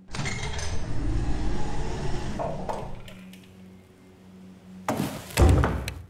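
A loud rushing noise that fades over about three seconds, then two heavy thuds about half a second apart near the end.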